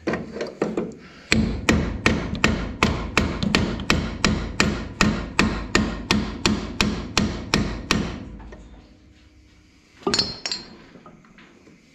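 Hammer blows on a part of a two-wheel tractor's gearbox, driving a tight-fitting part into its seat: a few light taps, then a steady run of about twenty sharp strikes at roughly three a second, and one clatter about ten seconds in.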